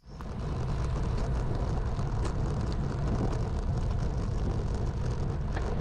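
Wind rushing over the microphone of a camera riding on a road bicycle, a steady deep rush that starts abruptly.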